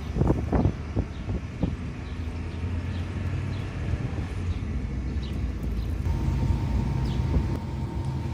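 Steady low rumble of a running engine or heavy machinery, with a few knocks in the first two seconds and a faint steady tone joining about six seconds in.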